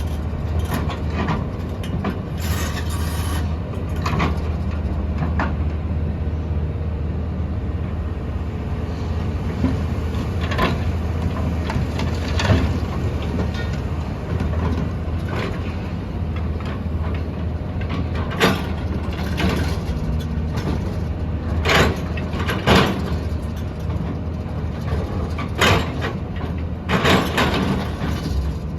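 JCB 3DX backhoe loader's diesel engine running steadily under load, with repeated metallic clanks, knocks and scrapes from the digging and loading of mud, several of them sharp and loud in the second half.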